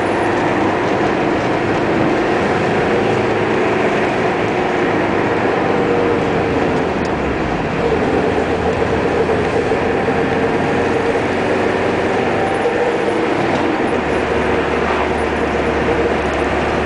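Steady engine and road noise of a car driving along a winding road, heard from inside, with the engine note wavering slightly.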